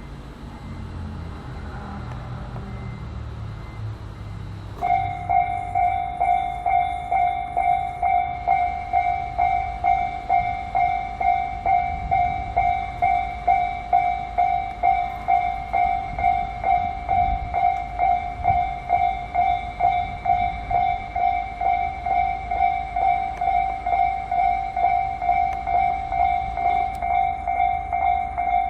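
A low rumble, then about five seconds in a Japanese level-crossing warning bell starts and rings evenly at about two strokes a second, the signal that a train is approaching the crossing.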